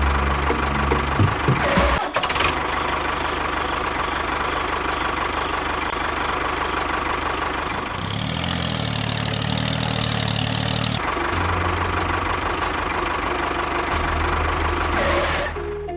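An engine running steadily, its pitch and tone changing abruptly every few seconds.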